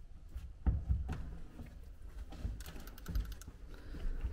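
Footsteps on a wooden floor: a few irregular soft knocks and clicks.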